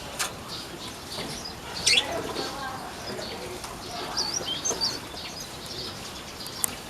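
Pleci (white-eyes) in an aviary twittering: scattered short, high chirps and warbled notes, with one loud sharp call about two seconds in and brief wing flutters.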